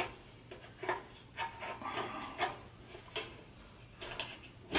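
Light clicks, knocks and rubbing from the kerosene heater's fuel tank and cap being handled after refuelling. There are a handful of separate knocks, spaced about half a second to a second apart.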